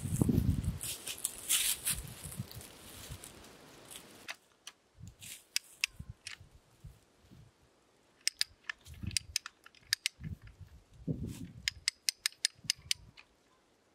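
Hand-ratcheting pipe threader clicking in short runs as its handle is swung back and forth, the die cutting threads into steel pipe lubricated with cutting oil, with a few dull knocks among the clicks. The first few seconds hold louder rustling and knocking before the clicking begins.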